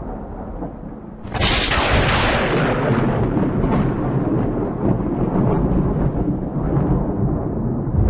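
A low rumble, then a sudden loud crash about a second in, followed by a long rumble that slowly dies away.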